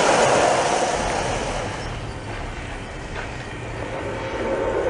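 Garden-scale model freight train rolling along its track close by, the wheels rumbling and clattering, fading over the first few seconds as the cars pass, then growing louder again near the end as a train comes on.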